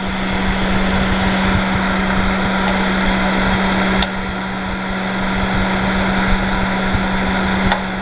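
Comfort Zone electric fan heater running: its fan blowing with a steady hum. A click about halfway as the fan switch is turned, after which it runs slightly quieter, and another short click near the end.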